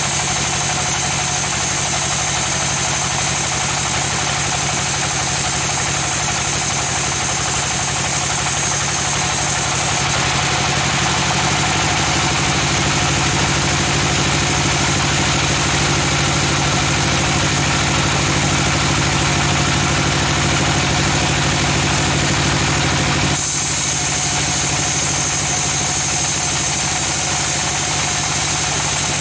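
Band sawmill running steadily at a constant level. Its hiss thins out abruptly about ten seconds in and comes back just as abruptly a few seconds before the end.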